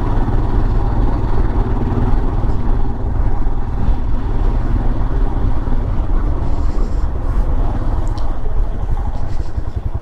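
Motorcycle engine running steadily as the bike rides along, with a continuous low rumble of engine and road noise.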